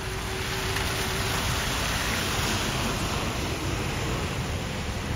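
Traffic on a rain-soaked street: tyres hissing on wet tarmac, swelling about two seconds in as a double-decker bus passes close.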